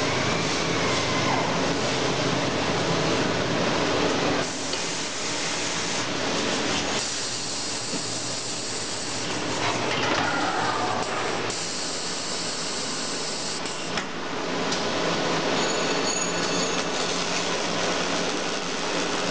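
Automatic saw blade welding machine running: a loud, steady hissing mechanical noise that thins out and comes back several times.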